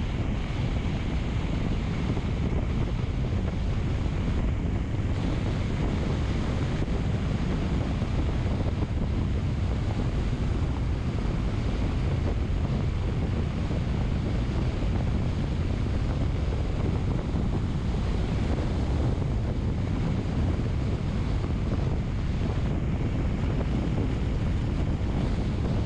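Steady wind buffeting the microphone, a constant low rumble with hiss above it.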